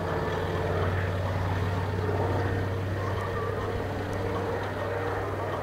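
Consolidated PBY-5A Catalina's two Pratt & Whitney R-1830 Twin Wasp radial engines running in flight, a steady low drone of propellers and engines.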